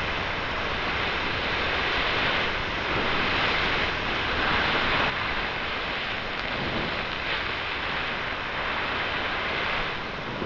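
Steady rushing noise from the piece's sound design, with no pitch or rhythm. It swells for a few seconds and drops off suddenly about halfway through.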